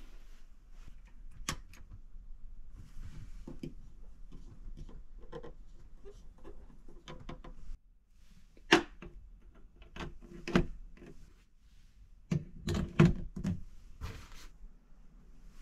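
Close-up handling: soft rustling and light clicks, then a few sharp plastic knocks and clicks as a plug-in USB charger is pushed into a wall power outlet. A quick cluster of knocks comes near the end.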